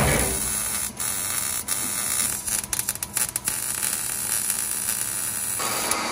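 Arc welding on a new 3-inch exhaust pipe joint: a steady buzzing crackle that breaks off and restarts several times between about one and three and a half seconds in, and stops near the end.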